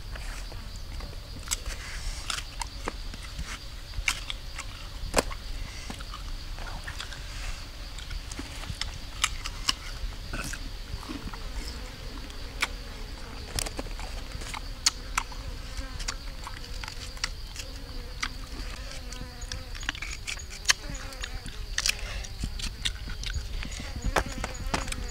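Irregular sharp crunches and clicks of someone biting and chewing sour fruit, over a steady high-pitched insect hum.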